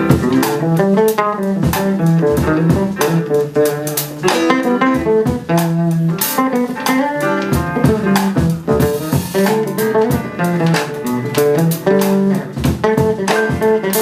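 Live jazz band playing an instrumental passage: electric bass guitar, piano and drum kit, with no vocals.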